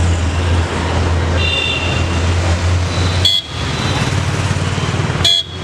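Busy road traffic with a steady low hum and a short, high horn toot about one and a half seconds in. The sound dips sharply for a moment twice in the second half.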